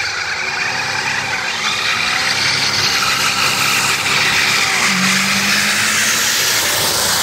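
Chrysler 440 big-block V8 revving hard in a burnout, the truck's rear tyres spinning and smoking. The engine note rises and falls twice, then settles to a steady high rev about five seconds in.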